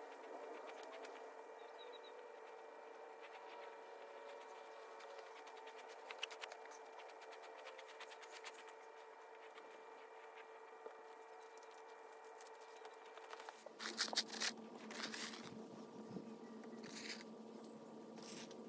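Faint outdoor background with a steady hum and scattered light ticks; about fourteen seconds in, louder close rustling and scuffing starts in grass.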